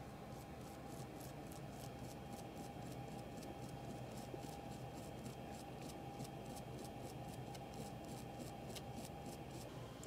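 Soft-bristled toothbrush scrubbing the gold pins of a Ryzen 5 3600 CPU wet with isopropyl alcohol, cleaning thermal material off them. A faint, scratchy brushing in quick, regular strokes, several a second.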